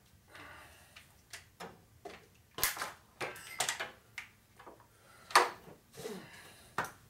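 Irregular clicks, knocks and rustles of tools being handled and put down: an electric drill with a cylinder hone in its chuck is laid on the floor, the drill not running. Two sharper knocks stand out, about two and a half seconds in and, the loudest, a little past five seconds.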